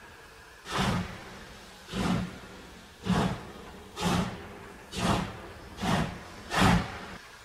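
Prussian G 12 (class 58) three-cylinder 2-10-0 steam locomotive 58 311 working a freight train, its exhaust beating from the chimney in steady chuffs about once a second. The beats quicken slightly as the engine passes, the last one the loudest.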